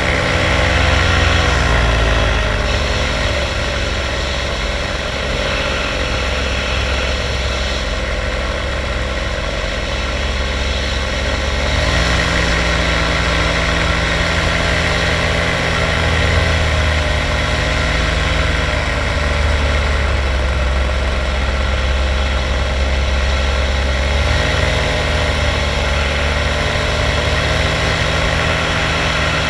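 Paramotor engine running steadily in flight, its pitch dropping about two seconds in, rising again about twelve seconds in, and dropping once more about twenty-four seconds in as the throttle is eased and opened.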